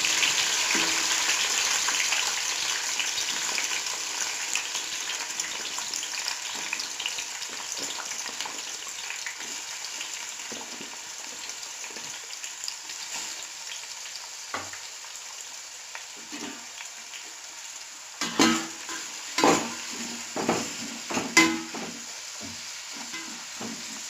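Onions sizzling in hot oil with whole spices just after going into the pan, the sizzle loud at first and fading steadily. Near the end a spoon knocks and scrapes against the pan several times as the onions are stirred.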